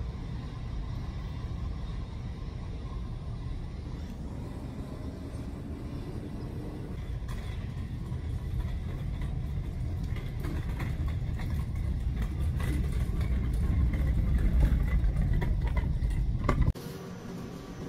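A steady low rumble that slowly grows louder, with faint clicks and rattles over it, cutting off abruptly near the end.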